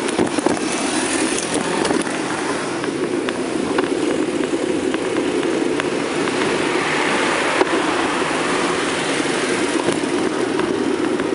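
Steady rushing noise of riding a bicycle along a street, with wind on the microphone and tyres on the road. A car passes, swelling and fading from about six to nine seconds in.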